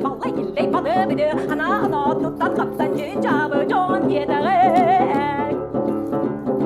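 A woman singing a Siberian folk song, her voice sliding between notes and wavering on a held note about two-thirds of the way in, over a steady, quickly repeated plucked-string accompaniment.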